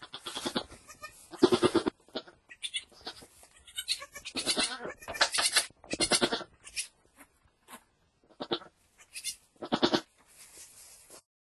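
Domestic goat bleating: a string of short calls, about a dozen, some loud and some softer, with brief pauses between them.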